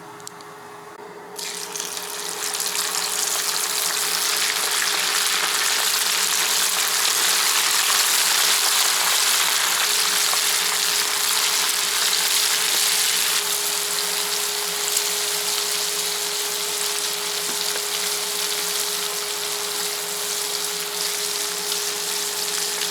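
Food sizzling in hot oil in a pan, a steady dense hiss that starts about a second and a half in, over a steady low hum.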